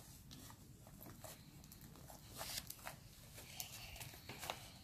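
Faint, scattered soft pats and squishes of hands pressing and kneading homemade slime against a tabletop, a little busier about halfway through.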